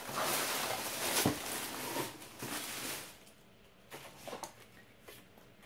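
Packaging rustling and crinkling as items are handled and pulled from a subscription box, busiest for the first three seconds. After that it turns quieter, with a few small clicks.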